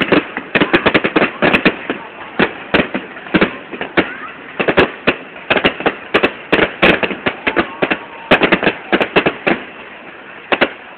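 Fireworks display: sharp bangs of bursting shells at irregular intervals, often several in quick succession.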